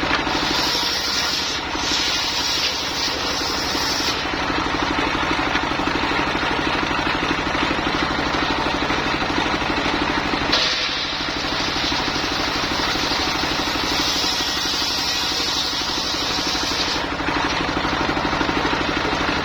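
Engine-driven mobile circular sawmill running steadily, with a higher hiss that comes and goes in stretches of a few seconds.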